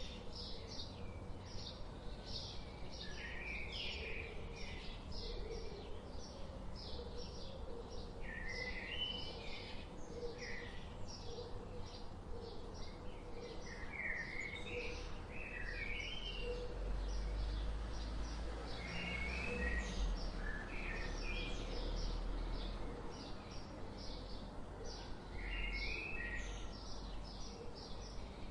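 Birds chirping and singing: many short high chirps and quick repeated phrases, with several calls overlapping, over a steady low rumble that swells in the middle.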